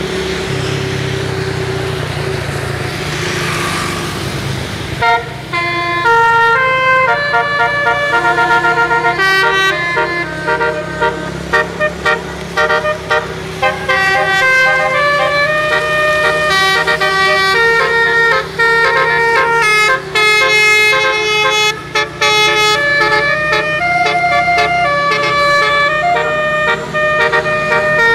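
Bus engine and road noise, then about five seconds in a tour bus's roof-mounted multi-trumpet 'telolet' horn starts playing a long, loud run of changing notes like a tune, one pitch after another.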